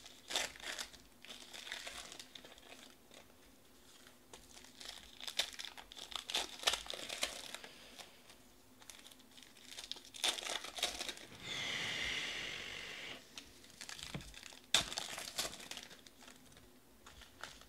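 Foil trading-card pack wrappers being torn open and crinkled by hand, with the cards handled: an uneven run of crackling rustles and tears, with one drawn-out squeaky rub a little past the middle.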